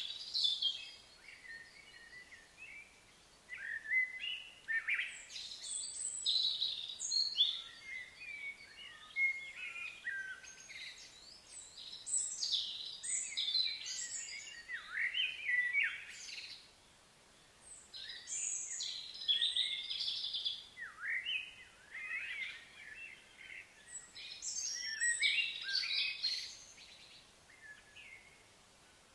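Birds chirping and singing in quick high phrases a few seconds long, with short quiet gaps between them, over faint outdoor background noise.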